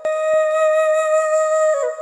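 Background music: a flute holds one long note, then steps down to lower notes near the end.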